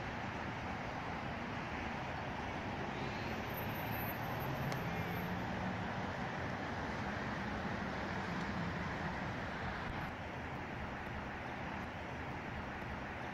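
Steady wash of distant road traffic noise, with a faint low hum that swells a few seconds in and fades again.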